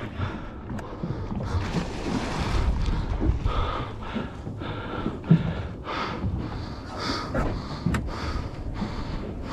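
An angler breathing hard and fast, one or two puffs a second, from the strain of fighting a hooked fish on rod and reel, over wind noise on the microphone.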